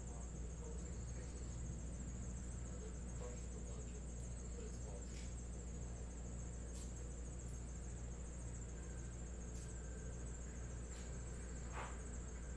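Quiet room tone: a low steady hum and a faint, steady high-pitched whine, with a few faint clicks scattered through.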